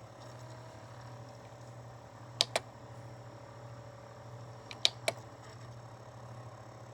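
A steady low hum with two pairs of short, sharp clicks, one pair about two and a half seconds in and another about five seconds in.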